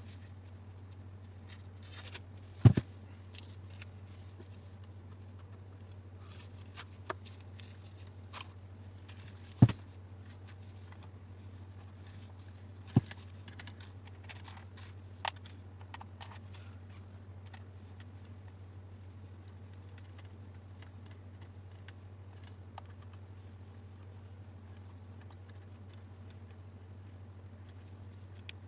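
Scattered clicks and knocks of DeWalt angle grinder parts being handled as the housing cover is fitted by hand, over a steady low hum. The loudest knocks come about 3, 10 and 13 seconds in.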